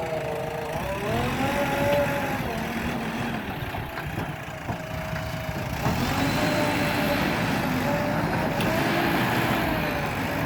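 JCB digger's diesel engine running under working load, its pitch rising and falling repeatedly as the revs change, over a steady low rumble.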